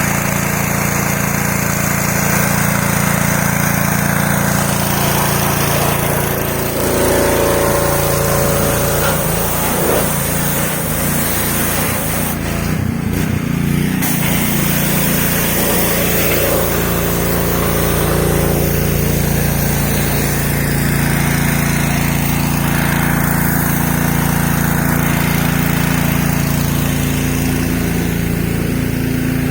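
Pressure washer's small petrol engine running steadily under load, its pitch shifting slightly a couple of times.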